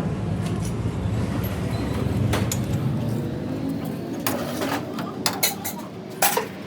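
A low steady rumble of a running motor or engine that fades after about four seconds, with several sharp metal clinks and knocks in the second half, as tools and steel parts strike each other.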